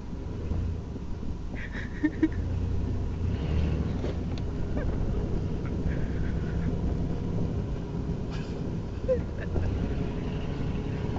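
Low, steady rumble of the engine of the vehicle towing the kayak, with wind on the microphone and a few small knocks.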